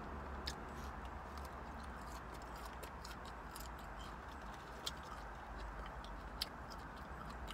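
Faint, scattered clicks and ticks from picking at and eating fried fish and fries from a foam takeout tray, over a steady low rumble in a car cabin.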